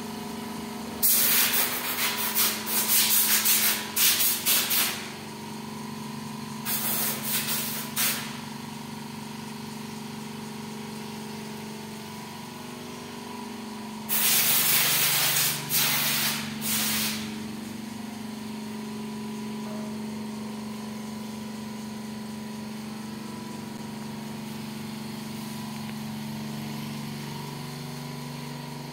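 Small air compressor's motor running with a steady hum, broken three times by spells of short, loud hissing blasts of compressed air. The blasts come about a second in, around seven seconds in and around fourteen seconds in.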